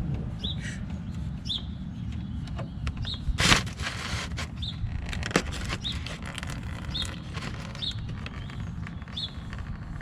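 A bird chirping repeatedly, one short high chirp about once a second, over a low steady background rumble. A few knocks and clatters of handling are mixed in, the loudest about three and a half seconds in.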